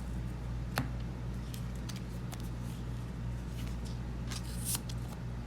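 Trading cards being handled: scattered soft slides and clicks of card stock, with a sharper click about a second in and a brief hissy rustle near the end, over a steady low hum.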